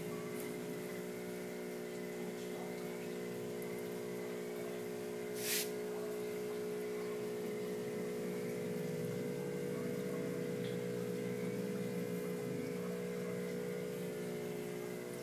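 Aquarium pump humming steadily at a few fixed pitches, with one short hiss about five and a half seconds in.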